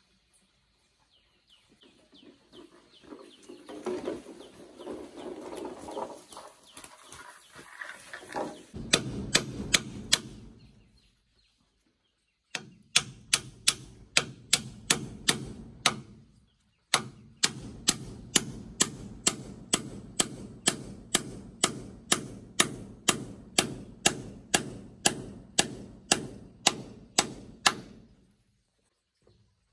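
Rapid, regular striking, about two to three sharp blows a second, in several runs broken by short pauses, after a few seconds of irregular rustling and scraping.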